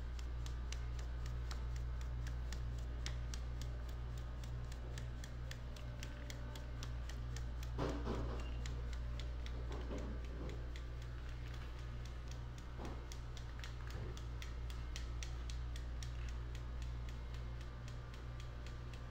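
Light regular taps, about three or four a second, as a hand pats the side of a metal drum sieve to shake flour through its mesh, over a steady low hum. A few slightly fuller brushing sounds come about halfway through.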